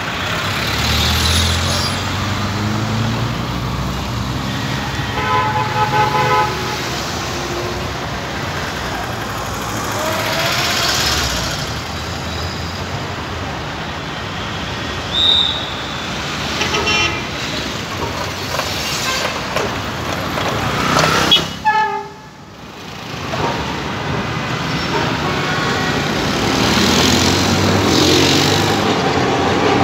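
Busy street traffic with car horns honking, one horn held for about a second and a half around five seconds in. An Alexandria Raml tram runs across the street, growing louder near the end.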